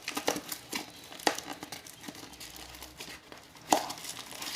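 Packaging crinkling and rustling as small accessories are handled and taken out of a doorbell kit's box, with irregular crackles and one sharper click about three-quarters of the way through.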